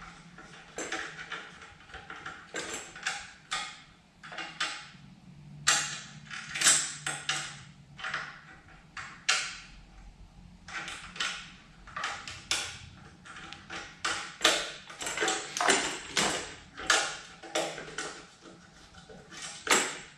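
Metal edger handle parts and bolt hardware being handled and fitted by hand: irregular clinks, taps and short scrapes as bolts, washers and thumb nuts go on.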